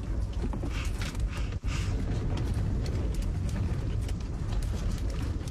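Steady low rumble of strong wind buffeting the camper van, with scattered light clicks and taps of chopsticks against a bowl during eating.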